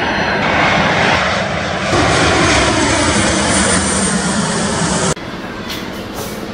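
Loud jet airliner engines running as the aircraft pass close by, cut together from several shots: the sound changes abruptly about two seconds in and again near the end, where it drops to a quieter, more distant engine whine.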